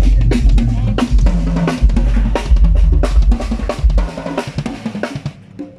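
Drum kit played live, with kick drum, snare and cymbal hits over deep sustained bass notes. The low notes stop about four seconds in, and the drumming thins out and dies away near the end.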